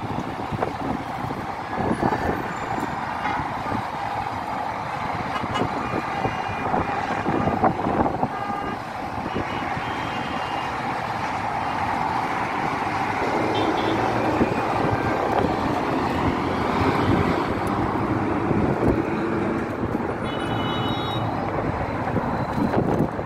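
Road traffic on the street below, with wind gusting on the microphone. A short horn toot sounds near the end.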